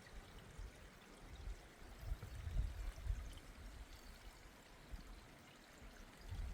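A woodland stream running: a faint, steady rush of water. There are low, irregular rumbles from about two seconds in.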